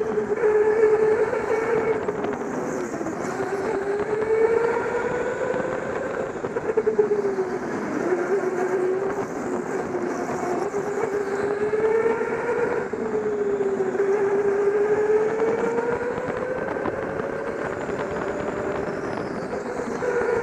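Indoor go-kart running at speed, heard from on board, a whining motor tone that drops and climbs again several times as the kart slows for corners and accelerates out.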